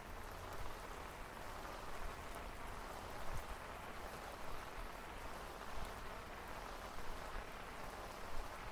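Steady rain falling on wet pavement and roadside plants, with a few louder drops and a low rumble underneath.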